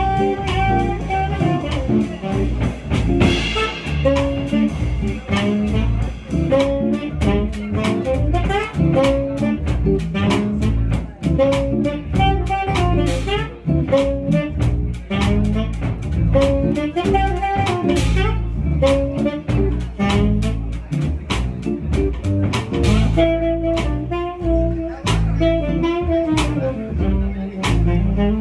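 A live jazz group playing, with an archtop hollow-body guitar among the instruments over a steady low bass part.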